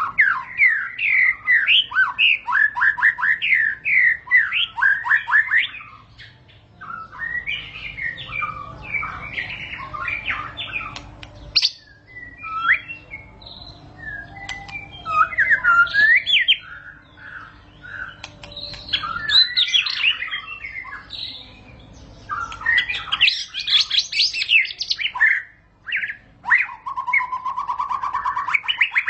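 White-rumped shama (murai batu) singing a long, varied song: loud phrases of fast whistled notes and trills, broken by short pauses, with a held note near the end.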